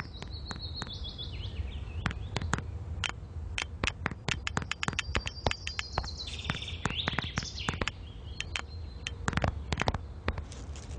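Cartoon bird sound effects: high, squeaky chirps with short pitch glides, heard near the start and again past the middle, among a scatter of sharp clicks throughout.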